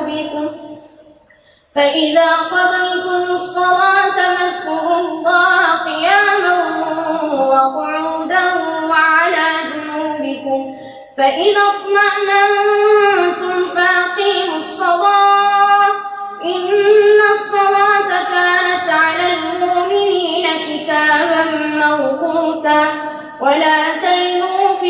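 A boy reciting the Quran in the melodic tajwid style into a microphone, holding long ornamented phrases with a few short pauses for breath, the first about a second in.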